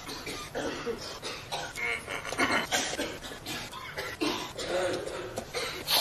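A rapid string of human coughs, one short cough after another at about two or three a second.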